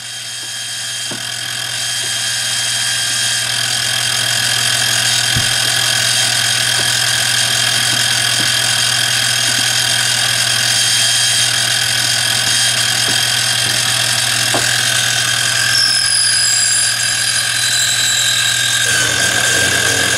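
PM25-MV benchtop mill's 1 kW spindle motor running steadily, a constant hum with a high whine. Near the end, extra whining tones join and drop in pitch.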